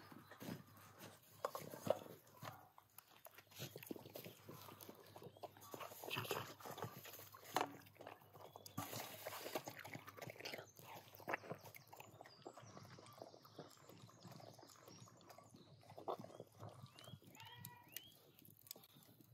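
A puppy eating chunks of raw meat from a steel bowl: wet chewing and smacking, with irregular clicks.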